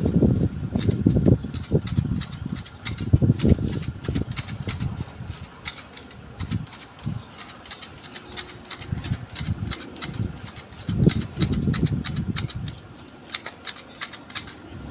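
Manual hedge shears clipping Fukien tea foliage: quick, repeated snips, several a second and thickest midway, over bursts of low rumble.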